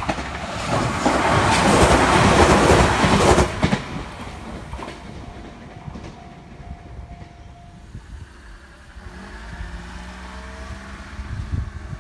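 A train passing over a level crossing: a loud rush of wheel and rail noise for about four seconds that then fades. A few seconds later the crossing's electronic alarm sounds a steady tone, and a lower pitched hum rises near the end.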